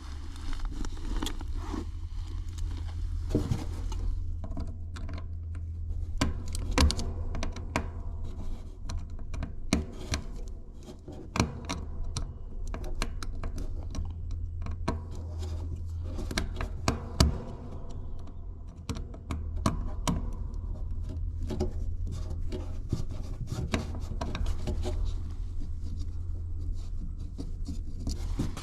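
Scattered clicks, taps and knocks of hand tools and screws against a sheet-metal cover panel as it is unfastened and handled, over a steady low hum.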